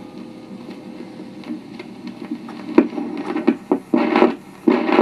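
1966 GE V631 record changer with its stylus riding the run-out groove of a 78 rpm record, giving a steady hum and surface noise. About three seconds in, sharp clicks and louder clattering bursts follow as the changer mechanism trips and starts its cycle on its own.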